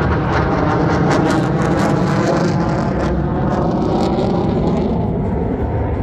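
Jet engine roar from a pair of Black Eagles T-50B aerobatic jets flying overhead: a loud, steady rumble with a crackling hiss that is strongest through the middle and eases off near the end.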